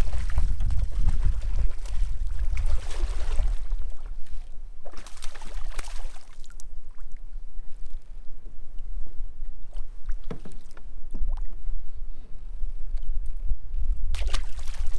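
Hooked bass thrashing and splashing at the water's surface beside a kayak. The splashes come in noisy bursts over the first few seconds, again around five seconds in, and near the end, over a constant low rumble.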